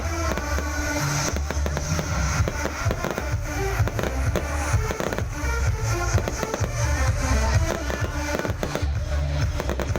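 Fireworks display: many bangs and crackles in quick succession, over loud music with heavy bass.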